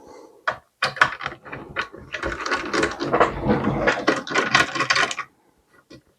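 Screwdriver undoing the screws in the metal-and-plastic base of a small desktop PC, with a few separate clicks and knocks, then a few seconds of dense, rapid clicking and scraping that stops sharply.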